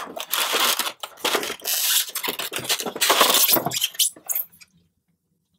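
Styrofoam packaging insert rubbing and scraping against itself and a plastic tray as the wedged tray is worked loose, in a string of rough bursts lasting about four and a half seconds.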